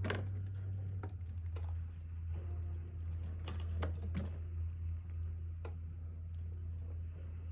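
Pet rats scrabbling about a wire cage: scattered light clicks and scratches, a few sharper ones around the middle, over a steady low hum.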